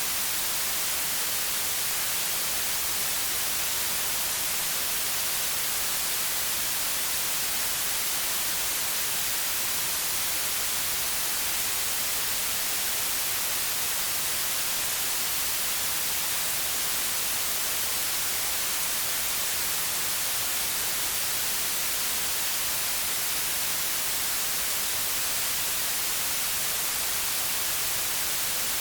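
Steady white noise: an even, unbroken hiss, brightest in the highest frequencies, with no changes or events.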